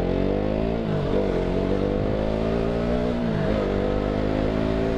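KTM Duke 200's single-cylinder engine pulling under way. Its note climbs, drops sharply about a second in and again near three and a half seconds, and climbs again after each drop.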